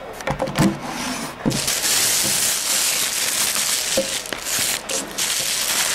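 A thin plastic carry bag rustling and crinkling continuously as it is handled and opened around a takeout lunchbox, after a couple of knocks near the start.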